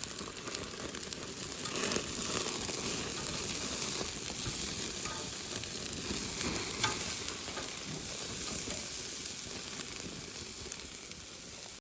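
Sirloin steak sizzling as it cooks over the fire, a steady hiss with scattered small pops. It grows louder about two seconds in and eases off slowly toward the end.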